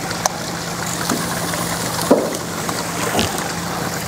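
Country-style pork ribs sizzling on a lit gas grill as barbecue sauce is brushed on: a steady hiss over a low hum, with a few light taps of the basting brush, near the start, about two seconds in and about three seconds in.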